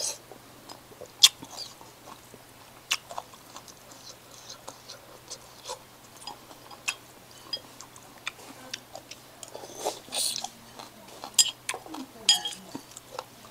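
A person eating noodles, picked up close on a lapel microphone: chewing and slurping, with scattered sharp clicks of a spoon and chopsticks against a ceramic bowl, the loudest about a second in.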